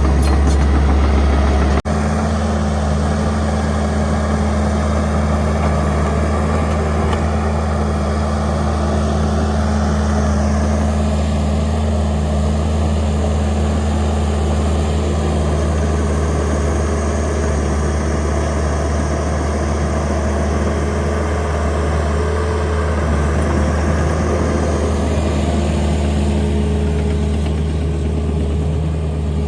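Heavy equipment's diesel engine running steadily at a low, even pitch, with an abrupt cut about two seconds in where the sound shifts slightly.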